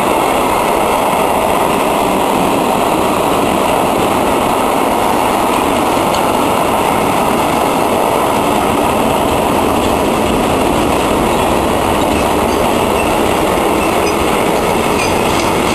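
Freight train of goods wagons rolling past on the rails: a steady, loud rolling noise of steel wheels on track.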